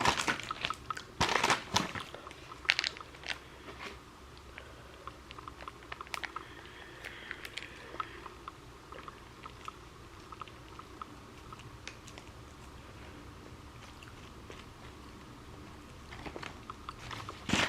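Close-up biting into a grilled sourdough egg sandwich: a few loud crunchy bites in the first three seconds, then quieter chewing.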